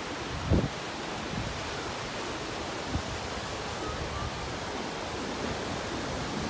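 Typhoon-driven surf breaking on a beach, heard as a steady wash of noise with wind across it. A short low thump about half a second in and a smaller one near three seconds.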